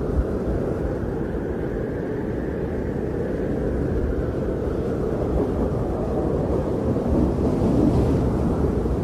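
Steady low rumble of blizzard wind buffeting the microphone, swelling slightly near the end.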